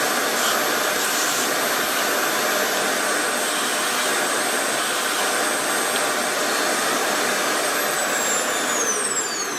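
RevAir reverse hair dryer's suction motor running: a loud, steady rush of air with a thin high whine. Near the end it is switched off and the whine falls in pitch as the motor spins down.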